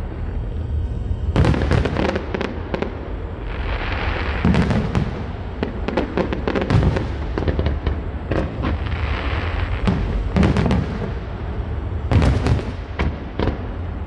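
Aerial fireworks going off: repeated sharp bangs and booms, with clusters of bangs about a second and a half in, around 4.5 s, 10.5 s and 12 s. Dense crackling bursts come twice, around 4 s and 9 s.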